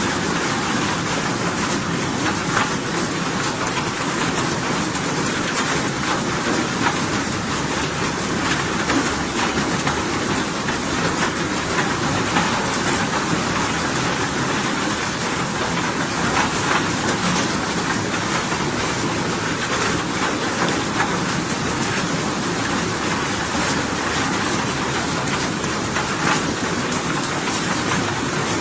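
Steady rain falling, an even unbroken wash of sound with a fine patter of drops throughout.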